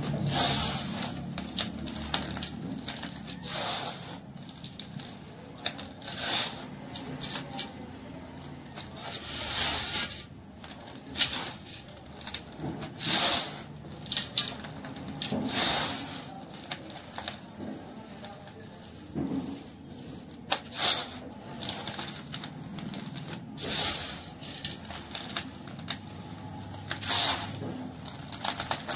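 Dry, dusty sand scooped, squeezed and dropped by hand in a basin: gritty rustling and crunching, with sharper bursts every second or two as handfuls crumble and pour onto the bottom.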